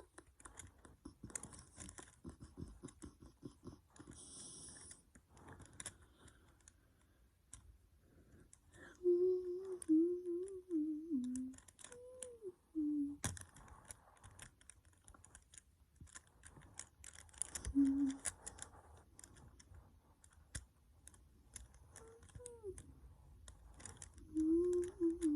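Rubik's Cube being twisted, its plastic layers giving off quick, uneven clicks throughout. A voice hums a few short tunes over it, most loudly about a third of the way in and again near the end.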